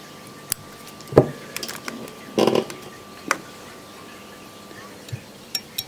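Small fly-tying scissors snipping off the waste end of the tying thread at the hook: a few sharp clicks and snips, the loudest about a second in, with light handling knocks after.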